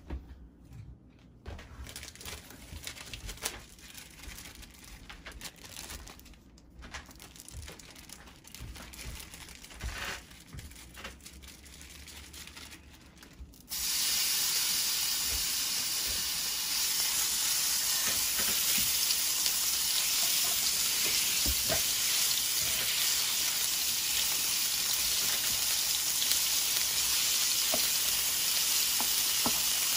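Thinly sliced raw beef dropped into hot oil in a nonstick frying pan, setting off a loud, steady sizzle about halfway through. Before that there are only a few faint clicks.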